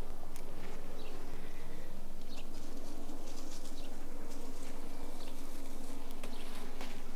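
Steady low insect buzzing, with scattered light clicks and rustles of leaves and stems as green beans are picked by hand from the vines.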